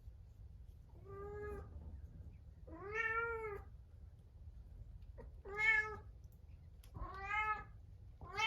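Munchkin cat meowing five times, each meow rising and falling in pitch, a second or two apart. These are the plaintive cries of a cat shut alone in a separate room.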